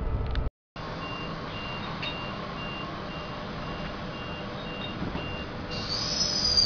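Queensland Rail electric train standing at the platform, its door-warning beeper sounding in short even beeps about twice a second over a steady hum. Near the end a high whine rises and then slides down in pitch as the train gets under way. A moment of low in-carriage rumble at the very start cuts off into a brief gap.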